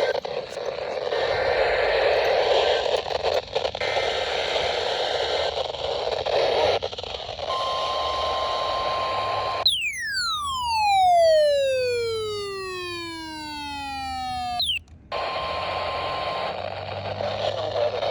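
Weather radio reception hissing with static, a steady high tone coming in after about seven seconds, then a whistle that falls steadily in pitch for about five seconds and cuts off suddenly, followed by the tone briefly again and more static.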